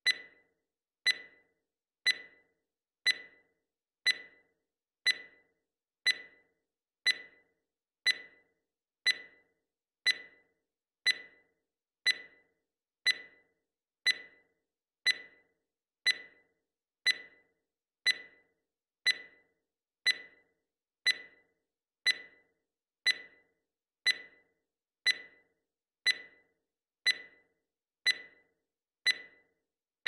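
Digital countdown timer beeping once a second, marking off each second of the count: short, sharp, high electronic beeps that each die away quickly, about thirty in a row.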